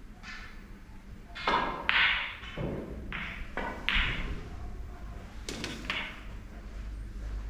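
Snooker shot on the yellow: the cue tip strikes the cue ball, the balls click together, and the yellow drops into a corner pocket, giving several sharp knocks and clicks over a few seconds.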